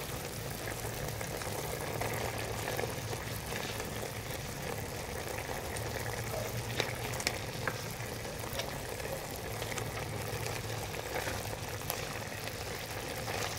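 Pork belly and duck eggs bubbling in a pot of dark braising sauce while a wooden spoon stirs them, with a few sharp clicks a little past the middle.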